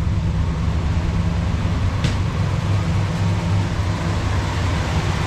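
1977 Ford LTD's V8 engine idling steadily after a fresh tune-up (new plugs, plug wires and distributor cap), with a tiny misfire that is barely audible.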